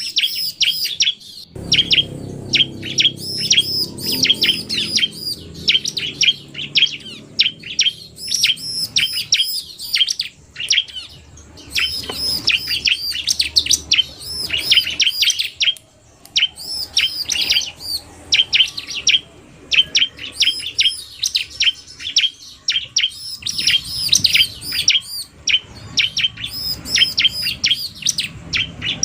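Bar-winged prinias (ciblek) calling in a mix of male song and female calls: rapid series of high, sharp chirping notes, several a second, in long bouts broken by short pauses.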